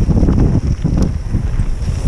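Wind buffeting a mountain biker's camera microphone at riding speed: a heavy low rumble that surges and dips unevenly.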